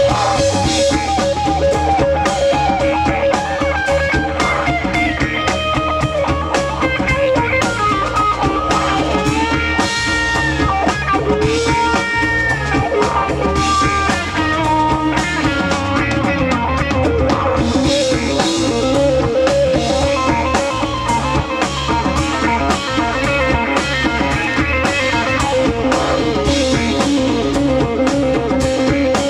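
Live band playing psychedelic jam-rock: electric guitar lead lines over bass guitar and a drum kit, with a didgeridoo droning in the band.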